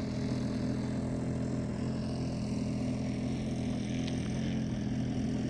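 Engine of a radio-controlled model Piper Cub tow plane running steadily at idle on the ground, waiting to tow a glider.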